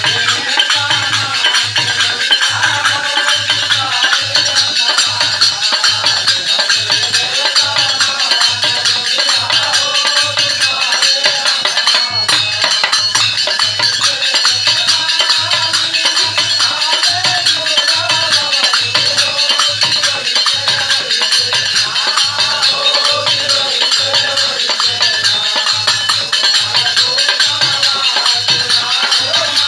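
Hindu devotional bhajan: men singing together with hand clapping, jingling hand percussion, and a steady low beat a little faster than once a second.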